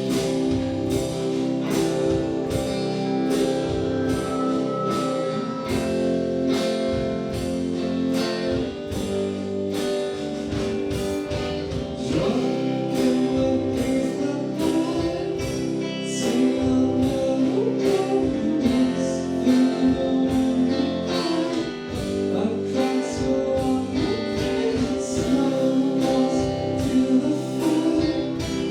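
Live band playing a song: guitars holding sustained chords over a steady drum beat of about two hits a second, with singing.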